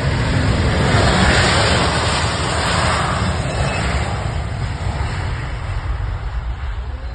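Aeroplane passing low overhead on its descent: a loud roar swells about a second in, peaks, then fades over the next few seconds, with a steady low rumble underneath.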